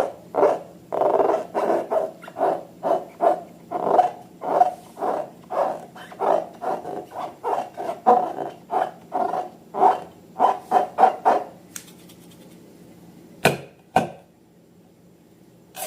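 Slime being squeezed and worked by hand: a rapid run of wet squelches, two to three a second, that stops about eleven seconds in. Two sharp clicks follow near the end.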